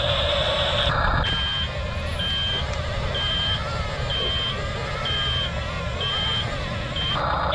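Double E E579 RC bulldozer reversing: a reversing beep sounds about once a second, seven times, over the steady whir and grind of its drive motors and tracks. A louder, even whine runs for the first second and comes back near the end, when the beeping stops.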